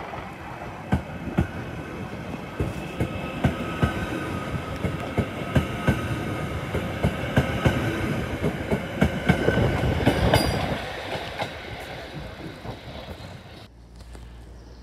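A Merseyrail Class 777 electric multiple unit running along the platform at close range. Its wheels click over the rail joints under a steady high whine, and the sound swells as the train passes, then fades. The sound drops suddenly near the end.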